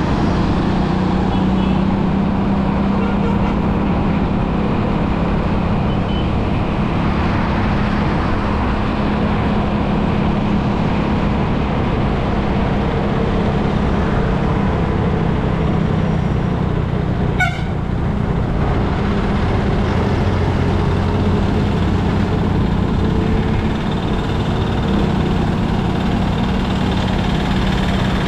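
Road traffic heard while travelling along a busy road: a steady engine hum under loud road and wind noise, with vehicle horns sounding. A short sharp click about two-thirds of the way through.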